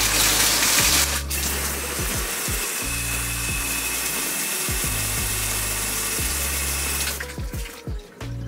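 Shower spray running into a bathtub onto a potted fern, a steady loud hiss that cuts off about seven seconds in.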